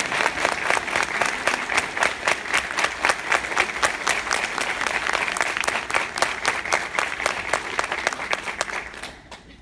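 Audience applauding, a dense patter of hand claps that dies away about nine seconds in.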